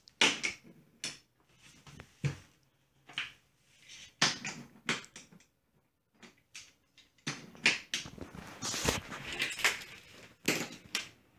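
Toy trains and track pieces being handled: irregular clacks and knocks of the toys knocking together and onto the table, with a stretch of rustling about eight seconds in.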